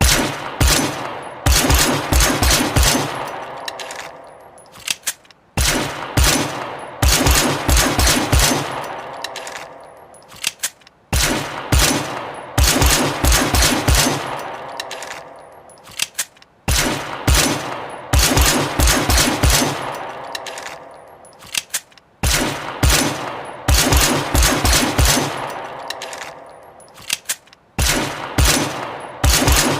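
Automatic gunfire sound effect: bursts of rapid shots, two bursts about a second and a half apart, repeating about every five and a half seconds. Each pair trails off in a long echoing decay.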